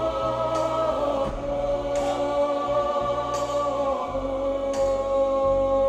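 Background music from a slow song with no lead vocal: long held chords over a bass line that changes every second or so, with a light hit about every second and a half.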